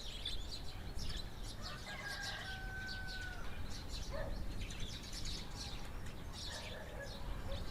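Small birds chirping over and over, with a rooster crowing once, a single drawn-out call from about two seconds in that falls away at its end. A steady low rumble of outdoor air runs underneath.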